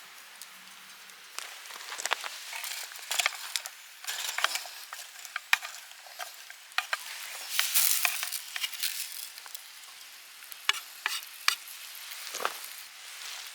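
Food sizzling as it fries in a pan, with irregular sharp pops and crackles throughout and a louder stretch of sizzling about halfway through.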